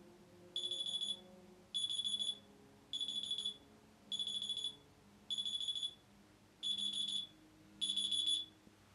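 Electronic alarm beeping: seven high-pitched bursts, each about half a second long, repeating about every 1.2 seconds and starting about half a second in.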